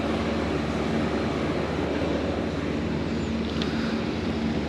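Steady engine drone with a constant low hum and rumble, unchanging throughout.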